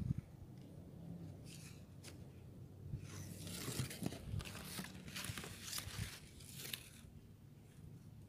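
Leaves and twigs rustling and crinkling as the foliage is brushed through, in irregular bursts with a few sharp crackles, busiest from about three to seven seconds in.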